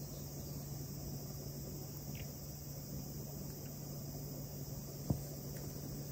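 Steady, continuous high-pitched chirring of crickets or other insects, over a low steady hum. One sharp click about five seconds in.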